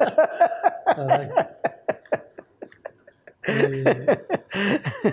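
A man laughing in a run of short, rapid breathy pulses, then in two louder voiced bursts near the end; a single exclamation, 'caray', about a second in.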